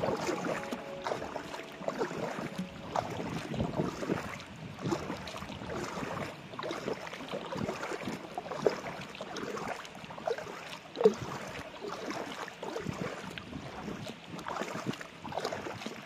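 Kayak paddle strokes in the water: irregular splashing and dripping from an inflatable kayak being paddled, with a couple of sharper splashes a little past the middle.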